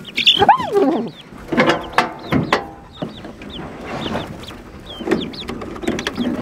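Young chickens cheeping and squawking in alarm as a hand reaches in to catch them, with short arching squawks about half a second in and again near the middle, and high little chirps throughout. Light clicks and rattles from the wire-covered tub come in among the calls.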